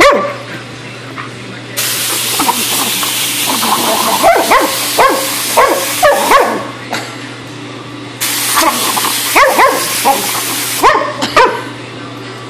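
A black Labrador puppy barks and yips at a compressed-air blow gun. The gun hisses in two long blasts, one starting about two seconds in and lasting about five seconds, the other starting about eight seconds in and lasting under three. Quick runs of barks come during the blasts, and a couple more follow just after the second one.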